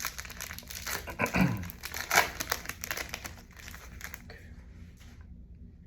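Plastic wrapper of a Topps Chrome WWE trading card pack crinkling and tearing as it is ripped open by hand, loudest in the middle, dying down after about four seconds.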